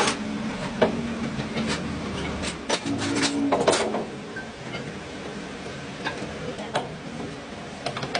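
Scattered sharp metallic clicks and knocks of work on truck axle parts, with a quick cluster of them about three seconds in, over a low steady hum.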